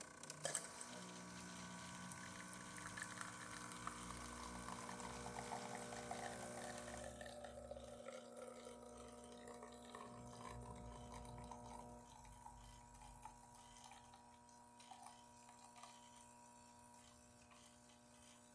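Jura E8 espresso machine dispensing a test shot: its pump runs with a steady hum while coffee pours into the cup. The sound quietens after about seven seconds and eases further around twelve seconds.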